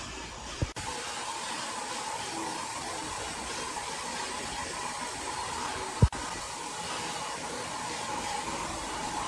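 Steady rushing, machine-like noise with a faint mid-pitched hum running through it, broken by two short low thumps, one just over half a second in and one about six seconds in.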